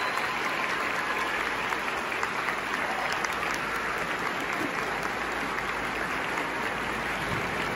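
A large concert audience applauding steadily.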